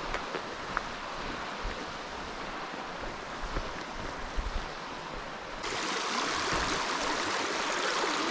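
Creek water rushing steadily, running high after heavy rain. The rush grows suddenly louder and brighter about two-thirds of the way through.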